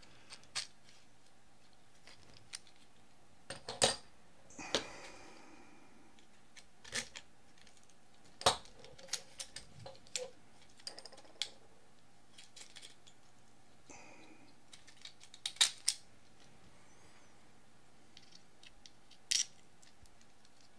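Quadcopter frame parts being handled and fitted together by hand on a wooden workbench: scattered sharp clicks and knocks of the arms and frame plates, with a brief scrape about five seconds in.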